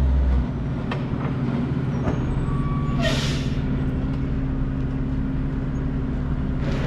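Diesel dump truck engine running steadily, with a short hiss of air from its air brakes about three seconds in.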